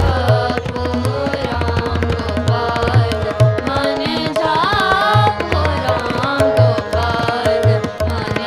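Gurbani kirtan music: a tabla keeps a rhythm with repeated deep bass strokes under a sung melodic line.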